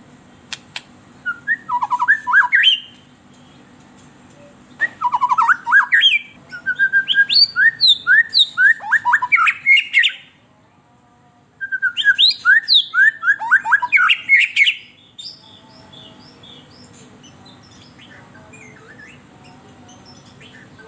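White-rumped shama (murai batu) singing a fired-up full song: three loud runs of quick, sweeping whistled and chattering notes, about two, five and three seconds long with short pauses between, then only faint soft notes near the end.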